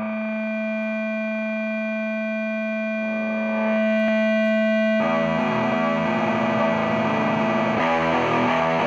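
Opening of a punk rock song: a distorted electric guitar holds a single ringing chord that swells slightly about three and a half seconds in, then about five seconds in the music turns busier and rhythmic.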